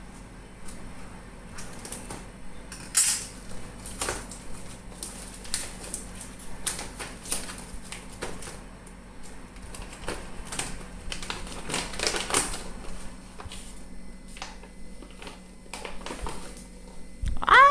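Irregular clicks and crackles of things being handled at close range, typical of a packet being worked open.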